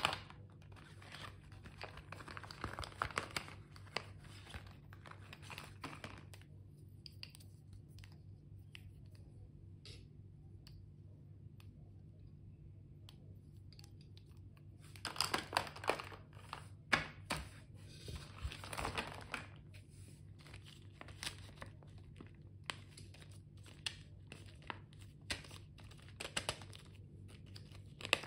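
Hands handling plastic-packaged stationery: plastic packaging crinkling and rustling, with light clicks of plastic pens being turned over. A quiet stretch of a few seconds holds only scattered clicks, and louder crinkling comes about halfway through.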